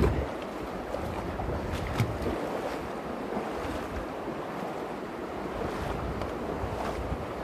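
The Virgin River running shallow over a rocky bed, a steady rush of water. Wind buffets the microphone, strongest in the first two seconds, and there is a single knock about two seconds in.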